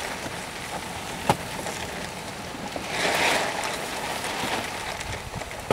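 Steady hiss of meat sizzling over a campfire, swelling about three seconds in, with a sharp knock about a second in and another near the end.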